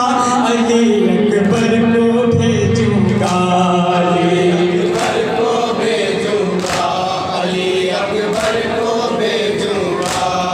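Men's voices chanting a noha, a Shia lament, together in chorus, with the sharp slap of chest-beating (matam) falling in time, one stroke just under every two seconds.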